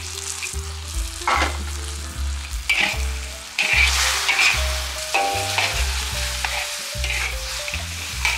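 Marmite-honey glaze sizzling and bubbling in a pan as it reduces and turns sticky, while a spatula stirs it with a few brief scraping strokes.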